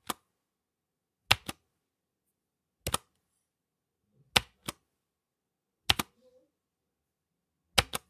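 Single computer keyboard keystrokes, slow and evenly spaced about every second and a half: five strokes, each a sharp double click.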